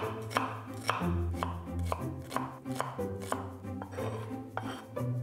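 Chef's knife dicing an onion on a wooden cutting board, the blade tapping the board in quick, uneven strokes about two a second, over background music.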